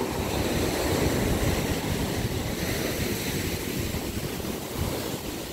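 Rough surf breaking and washing up a sandy beach as a steady rushing, with wind buffeting the microphone.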